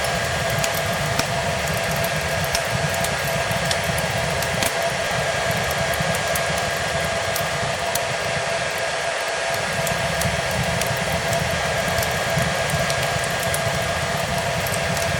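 Hair dryer running steadily: an even rush of air with a constant motor whine, overlaid with frequent small crackles and pops from a wood fire.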